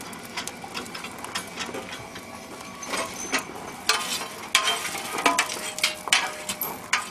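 Irregular metal clinks and knocks as iron bars and tongs strike and lever a steel ring hung on a chain over a fire, some hits ringing briefly. The knocks come thicker and louder from about three seconds in.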